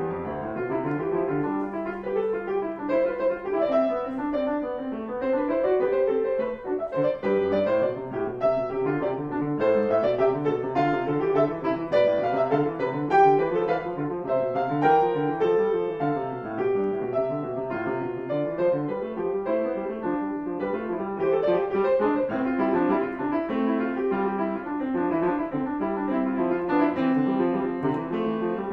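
Grand piano played solo in a classical piece, a continuous flow of notes in several overlapping lines with no pauses.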